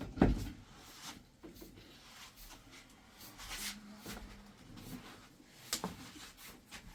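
A heavy thump just after the start, then scattered light knocks and clicks of objects being moved about.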